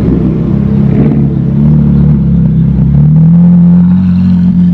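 Sports car engine running low and loud at slow speed, its pitch rising a little about halfway through and then holding.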